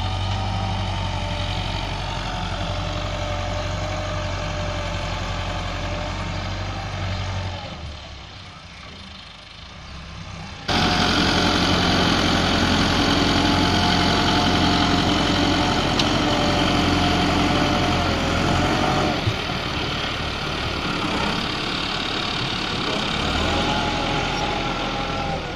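Diesel farm tractor engine running under load as it drags a rear levelling blade through loose soil and manure. It drops quieter for a few seconds, then comes back suddenly louder and closer about eleven seconds in.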